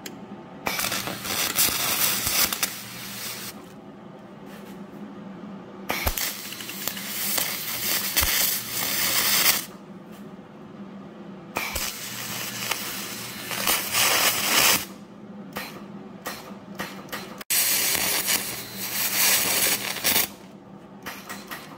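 Aluminum MIG welding arc from a Miller Spoolmate 100 spool gun on a Millermatic 140 running 5356 wire. The arc is struck four times, in crackling bursts of about three seconds each, with the welder's steady hum between them. The wire feed is too slow for 5356, so the wire burns back into the contact tip.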